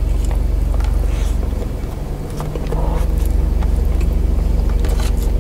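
Steady low hum of a car's idling engine, heard from inside the closed cabin, with faint wet chewing and finger-eating ticks over it.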